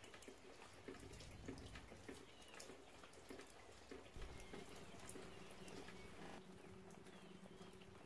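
Faint raindrops dripping and pattering on garden leaves, scattered light ticks. A low steady hum comes in about three-quarters of the way through.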